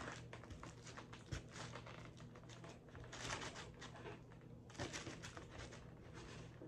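A crispy fried chicken sandwich being cut with a knife and pulled apart by hand: faint, irregular crackling and crunching of the breading and bun, with two thicker bursts of crackle about three and five seconds in.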